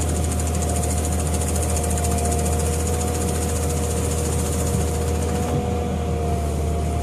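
Volvo EW160 wheeled excavator's diesel engine running steadily while it works a Herder ditch-mowing basket, with a low hum and a steady two-note whine on top.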